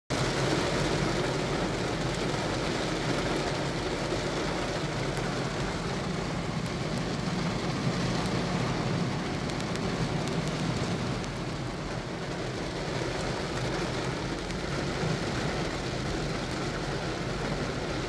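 Heavy rain falling on a car's roof and windows, heard from inside the cabin, over a steady low hum from the car.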